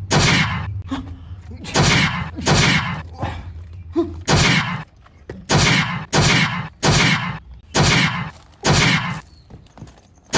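A rapid series of about ten loud, sharp shot- or impact-like sound effects, each with a short fading tail, coming unevenly and often in pairs.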